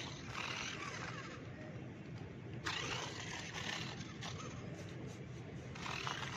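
Toy RC car driving over rough ground, its tyres and motor making a scraping noise in bursts of a second or so.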